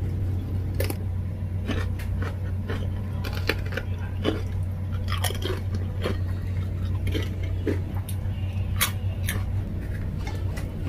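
Close-up crunching and chewing of thin, crisp black chips, a run of short sharp crunches scattered irregularly through the whole stretch. A steady low hum sits underneath.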